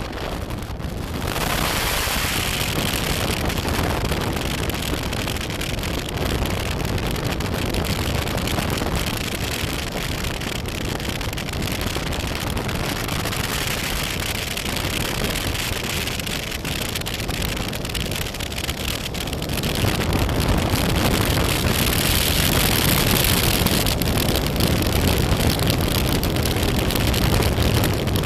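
BMW F800GS adventure motorcycle underway, heard as steady wind rushing over the microphone with the engine and road noise underneath. It builds over the first two seconds and grows louder again about twenty seconds in.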